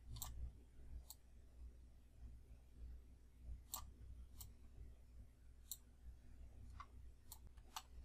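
Faint computer mouse clicks, about eight scattered at irregular intervals, over a low steady room hum in near silence.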